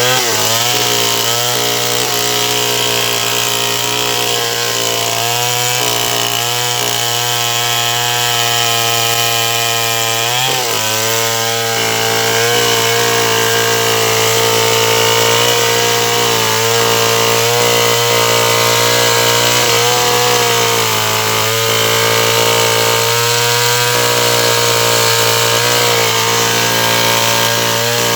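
Stihl 070 two-stroke chainsaw running steadily under load, cutting sengon wood. Its engine pitch dips briefly just after the start and again at about ten seconds.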